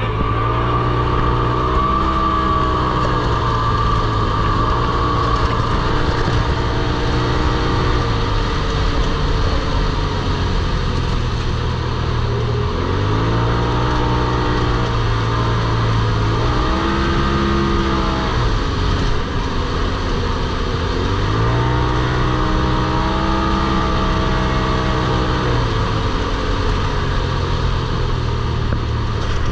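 Vehicle engine running under load, revving up and easing off again and again, its pitch rising and falling about every four seconds.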